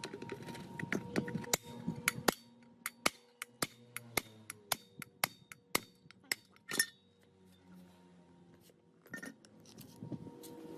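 A run of sharp metal clinks and taps, several a second, from tools striking or handling metal parts; they thin out for a couple of seconds before a few more near the end.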